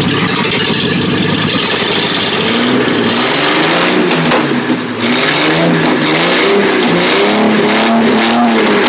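Mercedes M123 engine running, its speed rising and falling unevenly from about a third of the way in, as if the throttle is being worked.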